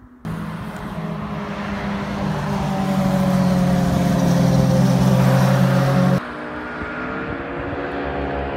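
Sport motorcycle engines at speed. One bike's engine grows louder on a steady note, then it cuts off abruptly about six seconds in. Another bike then approaches, its engine pitch rising as it accelerates.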